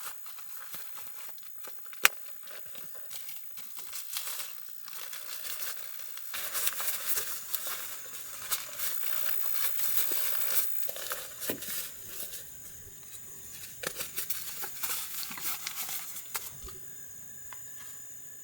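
Irregular crinkling and rustling, like something being handled, with many small clicks and one sharp click about two seconds in; it dies away near the end.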